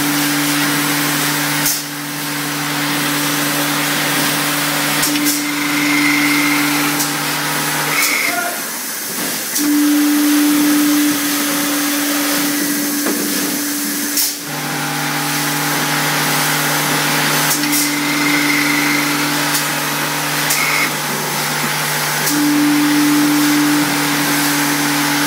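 Eight-head linear bottle-filling machine running, with a steady motor hum under a constant hiss of liquid and air. Sharp pneumatic clicks come every few seconds as the filling nozzles cycle. The lower hum drops out for several seconds in the middle, then returns.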